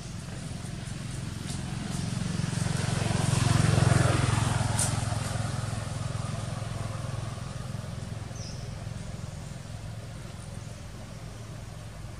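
A motor vehicle driving past: its engine hum grows louder to a peak about four seconds in, then slowly fades away.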